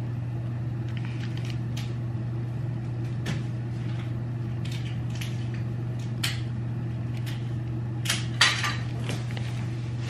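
Light plastic crinkles and clicks as a soy sauce packet is squeezed over sushi in a clear plastic tray, with a short run of louder crackles about eight seconds in. A steady low hum lies under it throughout.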